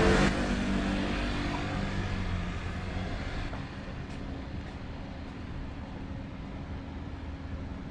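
Street traffic: a motor vehicle's engine passing close by, fading away over the first three seconds, then a steady low hum of traffic.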